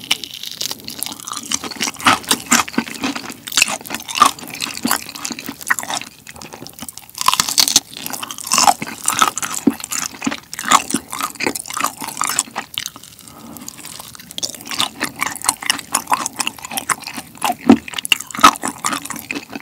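Biting, tearing and chewing of a crunchy fried chicken drumstick coated in sweet-spicy yangnyeom sauce, taken in small bites, with crackling crunches of the coating. The eating briefly goes quieter twice, about six seconds in and about thirteen seconds in.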